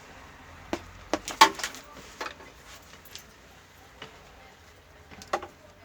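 Scattered light clicks and knocks from handling the opened TV's parts and cables, with a quick cluster about a second and a half in being the loudest.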